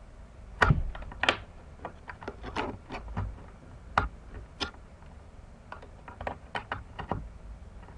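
Irregular clicks and knocks of things being handled at a desk, with a few louder thumps about a second in and again about four seconds in.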